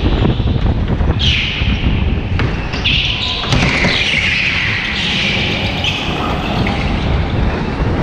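Go-kart running at speed on an indoor track, its tyres squealing several times as it slides through corners. There is a sharp knock about three and a half seconds in.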